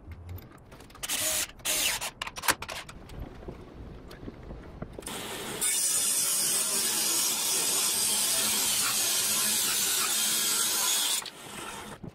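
Table saw running steadily for about five and a half seconds as a board is fed through it, cutting off abruptly near the end. Before it, a few sharp knocks and scrapes of wood and tools being handled.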